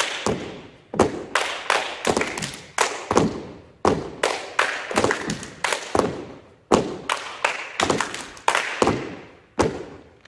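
Cheerleaders clapping and stomping a cheer rhythm on a wooden gym floor: sharp hits in quick groups of two or three, several a second, each followed by a short echo.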